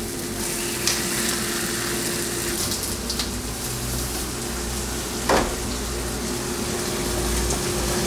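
Food sizzling steadily in a hot frying pan on a gas stove, with a few short sharp knocks.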